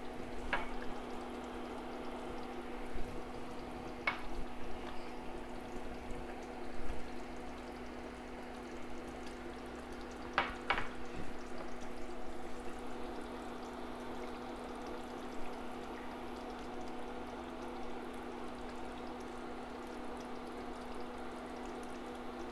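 Doro Wat chicken stew simmering in the pot, with a steady low hum under it and a few short clicks and taps.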